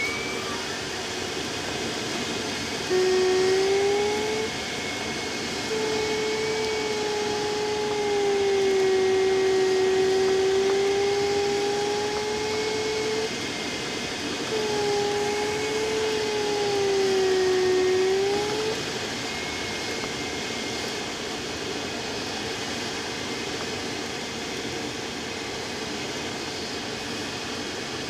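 Steady rush of airflow around a Speed Astir glider's canopy in flight. A variometer's electronic tone sounds in three stretches, from about three to nineteen seconds in, its pitch slowly wandering up and down with the glider's climb and sink.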